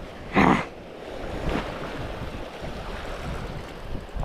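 Sea waves washing against the shore, with wind rumbling on the microphone. A short puff of noise comes about half a second in.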